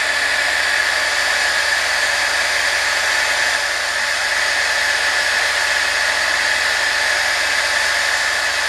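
Small electric heat gun running steadily: a constant rush of blown air with a steady high tone in it, as it shrinks heat-shrink tubing over a soldered wire.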